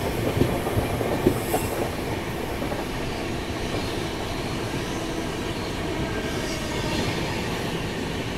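Running noise of the Chennai–Bengaluru Double Decker Express heard from inside an air-conditioned coach: a steady rumble and rattle of the wheels on the track, with a few sharp knocks in the first two seconds.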